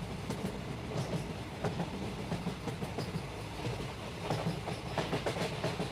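A train running on the rails: a steady rumble with irregular clicks and clatter from the wheels over the track.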